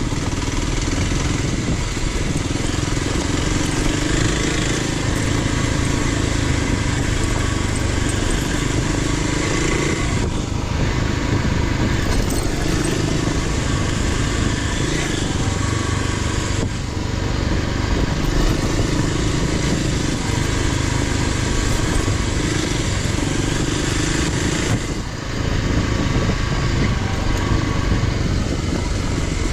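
Dual-sport motorcycle engine running steadily while riding a trail, easing off briefly three times.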